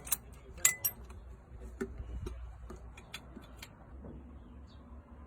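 Sharp metallic clinks and taps of tools and parts being handled, a quick cluster in the first second and scattered ones until about three and a half seconds in, over a faint low hum.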